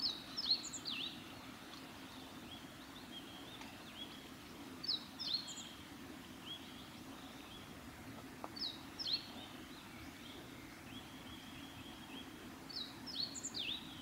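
Male meadow bunting singing: four short phrases of quick, sharp, high notes, about one every four seconds.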